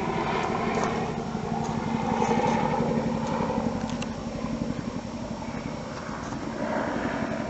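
Helicopter passing overhead, its rotor making a rapid, steady chop that swells a couple of seconds in and then eases off.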